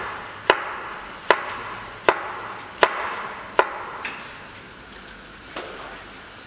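Chef's knife chopping vegetable batons into small macédoine cubes on a plastic cutting board: five slow, evenly spaced knocks, about one every three-quarters of a second, each with a short ring after it. A softer knock follows near the end.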